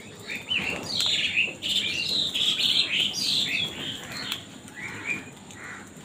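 A flock of house crows cawing, many short calls overlapping, busiest and loudest in the middle few seconds.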